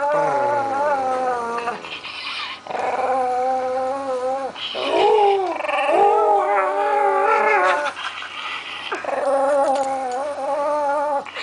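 Dog making a Wookiee-like call: several long, wavering, drawn-out vocalizations with short breaks between them.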